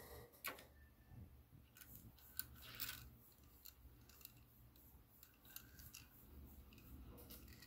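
Faint clicks and rubbing of small plastic toy trains being handled and rolled across a wooden tabletop, a few sharp ticks standing out over near silence.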